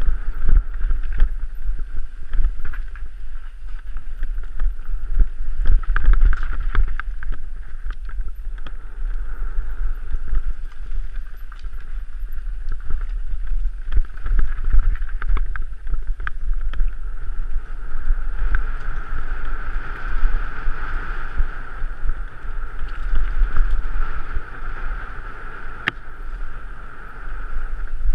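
Mountain bike descending rocky singletrack: tyres and frame rattling and clicking over loose stones, with wind rumbling on the bike-mounted camera's microphone.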